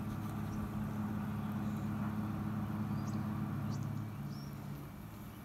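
Steady low drone of an engine running at constant speed, unseen; its hum drops away about four seconds in. A few short high chirps sound over it.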